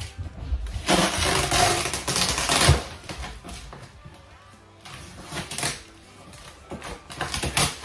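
Rustling and crinkling as a cardboard moving box and its contents are handled and dug through. It is loudest for a couple of seconds near the start, with shorter rustles later.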